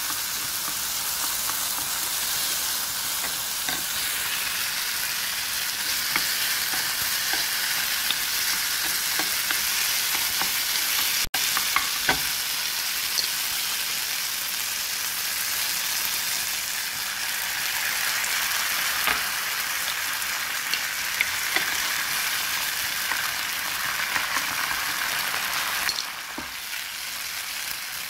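Half-cooked rice frying in oil in a nonstick pan: a steady sizzle, with occasional small clicks as a wooden spatula stirs and pushes it around. The sound breaks off for an instant about eleven seconds in, and the sizzle drops a little near the end.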